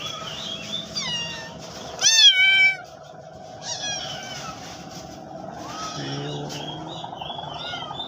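Cat meowing repeatedly in short, high-pitched calls, the loudest and longest meow about two seconds in.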